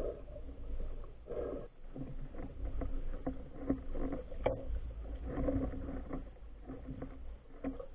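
Muffled underwater sound picked up by a submerged camera: a low steady rumble of water with faint scattered clicks and knocks, one sharper knock about halfway through.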